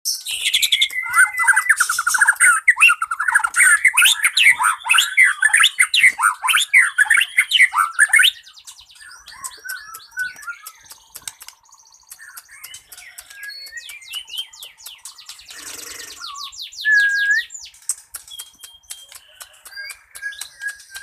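White-rumped shama (murai batu) singing a long, varied song full of mimicked phrases. It is a rapid, loud warbling for about the first eight seconds, then softer scattered whistles, trills and clicks with one loud short note near the end.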